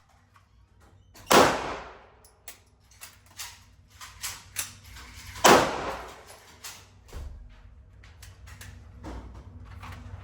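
Two loud gunshots about four seconds apart, each ringing out in a reverberant room, among a scatter of fainter sharp cracks.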